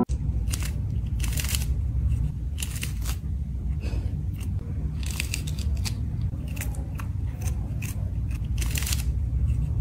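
A kitten crunching and chewing a small whole fish: irregular crisp crunches, sometimes several in quick succession, over a low rumble.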